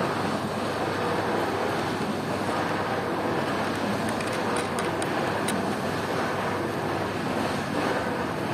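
Steady outdoor background noise with a few faint clicks about halfway through as the wooden easel parts are handled close to the microphone.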